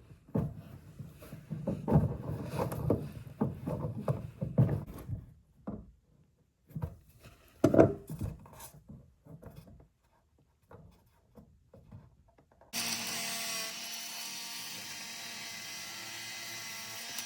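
Tub drain lock nut being hand-tightened against its rubber gasket, with irregular knocks, clicks and scraping of the fittings and tools. About 13 seconds in a steady hissing, whirring sound with a faint hum starts suddenly and holds at an even level.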